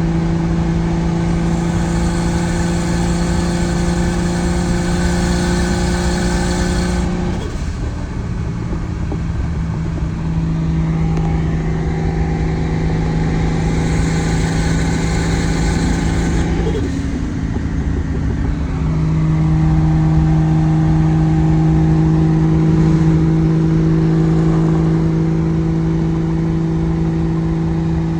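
Mk3 Toyota Supra's straight-six engine at a steady cruise, heard from inside the car. It eases off about a quarter of the way in, then pulls again with a rising pitch and settles back to a steady drone for the rest. A constant hiss of heavy rain and wet road runs underneath.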